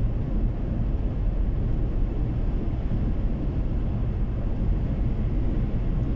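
Steady low rumble of a car cruising at highway speed, heard from inside the cabin: road and engine noise.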